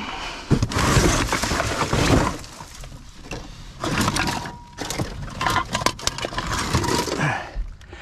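Glass bottles clinking and clattering against each other and other rubbish as they are dug out of a dumpster. The rattling comes in two long bouts of sharp knocks, with a quieter gap around the middle.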